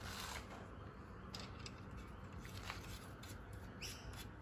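Faint handling sounds: a few light clicks and scrapes of fingers working the connecting-rod cap and its nuts, over a low steady background rumble.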